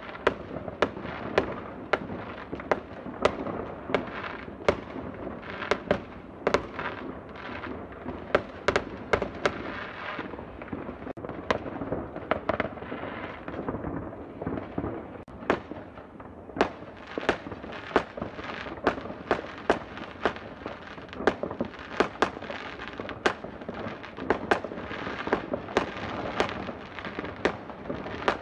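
New Year's fireworks going off: a dense, irregular run of sharp bangs and cracks over a continuous crackle.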